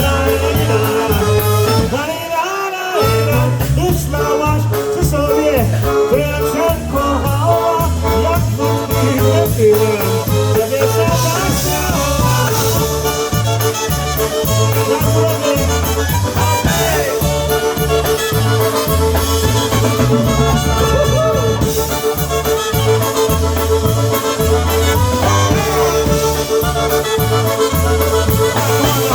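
Live polka band playing a song with a steady, bouncing beat.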